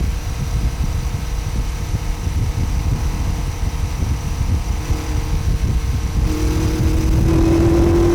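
BMW K1100 RS inline-four engine running while the motorcycle is ridden, under a heavy low rumble. About six seconds in, its pitch rises and it grows louder as the throttle opens.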